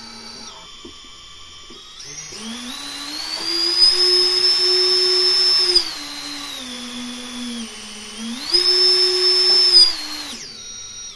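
Brushless motors of a 7-inch FPV quadcopter spinning with no propellers fitted: a high electric whine that starts at a low idle, rises about two seconds in, drops back around six seconds, rises again, then winds down and stops near the end. A bench test of the motors, all spinning and working.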